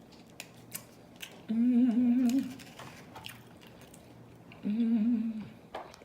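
A woman humming with pleasure while chewing: two short, wavering hums, the first about a second long and the second a little shorter near the end, with small clicks of chewing in between.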